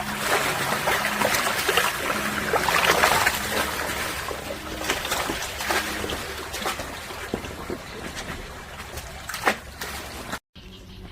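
Water splashing and trickling, busiest in the first few seconds and then easing, over a steady low hum. The sound breaks off abruptly near the end.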